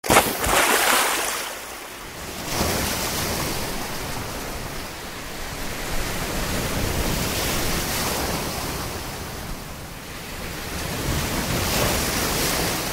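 Sea surf breaking and washing in, in several slow surges of rushing noise, with some wind on the microphone.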